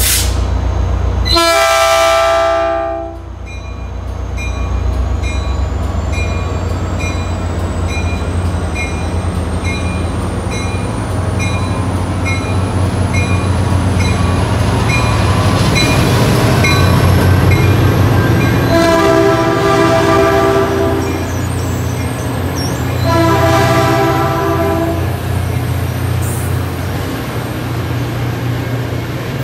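Caltrain EMD F40PH diesel locomotive No. 916 passing close by with its engine running, sounding its multi-chime horn: a short blast near the start and two longer blasts about two-thirds of the way through. A bell dings at a steady beat through the first half.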